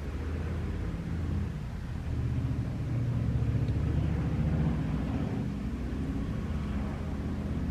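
A steady low rumble or hum, growing a little louder around the middle.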